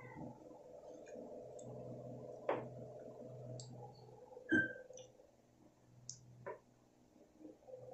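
Scattered light clicks and taps, with a sharper knock about four and a half seconds in, over a steady low hum.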